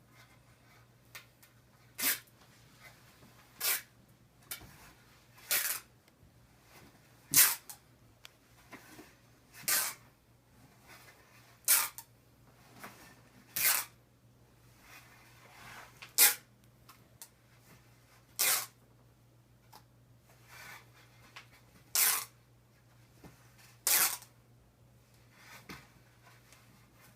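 Cloth hockey tape being pulled in short, sharp rips, a dozen or so, about one every two seconds, as it is drawn off the roll or peeled off the stick's knob.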